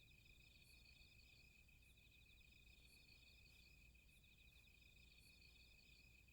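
Near silence with faint, steady, fast-pulsing chirping of night insects.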